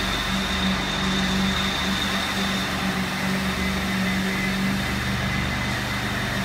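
Steady drone of machinery running, a constant low hum with a thin high whine above it, unchanging throughout.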